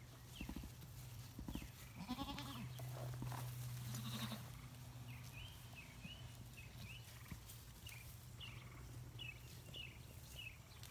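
Goats bleating, with a couple of calls in the first half. Short high chirps repeat through the second half over a steady low hum.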